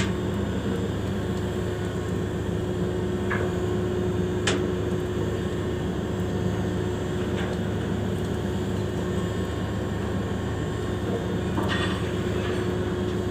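Steady low machinery drone from a large ship moored close by, a hum with one constant tone, like its engines or generators running. A few faint clicks sound over it.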